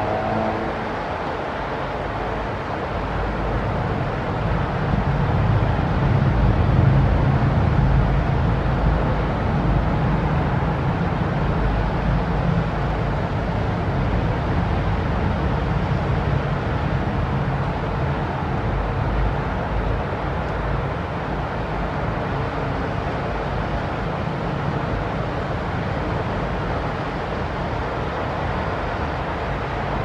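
Steady distant city traffic noise with a low rumble, swelling a little from about four to twelve seconds in.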